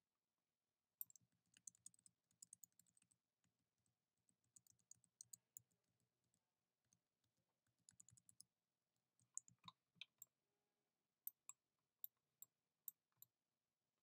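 Faint clicking of a computer keyboard and mouse, in a few quick runs of clicks with pauses between, then single clicks about half a second apart near the end.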